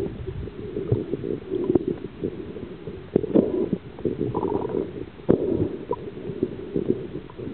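Muffled, low water sloshing and gurgling, with scattered knocks and clicks throughout.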